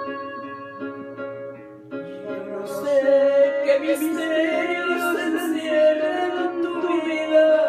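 Karaoke backing track playing steady instrumental notes, then a woman singing into a hand-held microphone over it from about two seconds in, her voice louder than the accompaniment.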